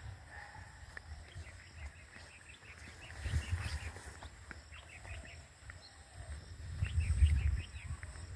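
Outdoor ambience with small birds chirping in quick short notes throughout. Low rumbles on the microphone swell twice, around three and seven seconds in.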